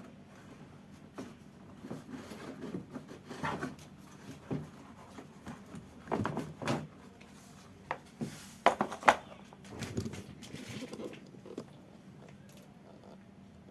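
Irregular knocks, clicks and rattles of hand work on the car's parts and tools, with a cluster of sharp clicks about nine seconds in.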